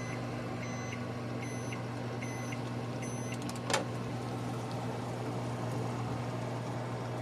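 Microwave oven beeping to signal that heating is done: about five short, high electronic beeps, one every 0.8 seconds or so, over a steady low hum. A sharp click follows about a second after the last beep.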